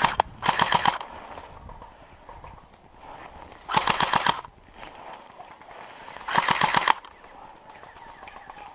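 Airsoft gun firing short full-auto bursts of rapid shots, three bursts a few seconds apart with a brief one just before the first.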